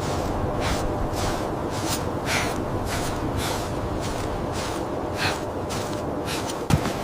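Heavy, rhythmic breathing, about two breaths a second, over a steady low wind rumble, with a single thump near the end.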